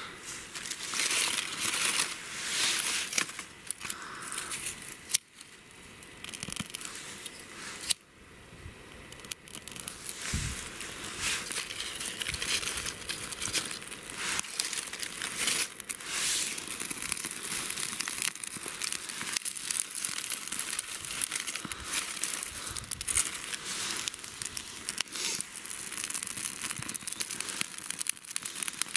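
Kindling fire catching: lit birch bark and dry twigs crackling and crinkling steadily as they burn, with the bark and sticks being handled. Two sharper clicks stand out about five and eight seconds in.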